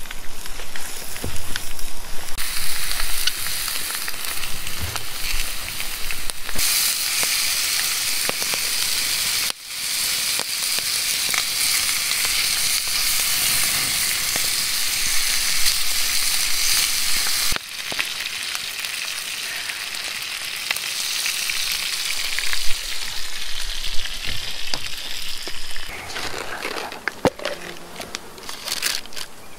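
Sausages frying in a frying pan over a campfire: a steady sizzling hiss, changing level abruptly a few times, giving way near the end to a few light clicks and taps.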